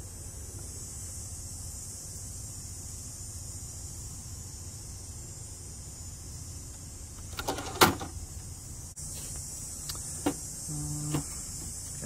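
Clicks from a 1964 Hermes Ambassador manual typewriter's mechanism, a short run of them ending in one sharp clack about eight seconds in, then a few lighter clicks near the end, over a steady high hiss.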